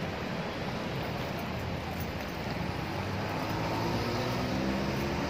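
Steady city street noise, mostly road traffic, with no single sound standing out.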